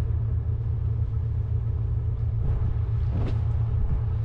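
Steady low rumble with a faint hum over it, unbroken throughout, and a brief faint sound about three seconds in.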